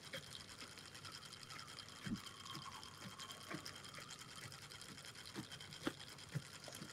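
Fixed-spool sea-fishing reel being wound in, a faint, fast, even whirring with a few soft knocks. It is retrieving a light rig with no fish on.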